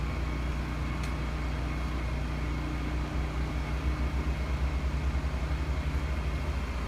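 A Redback 3.8 kVA fuel-injected inverter generator running steadily, heard from about 7 m as a low, even hum, which throbs gently from about halfway through.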